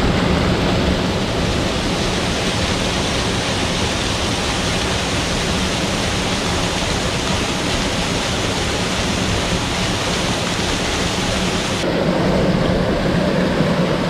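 Waterfall rushing, a steady noise of falling water. Near the end it abruptly turns duller, losing much of its hiss.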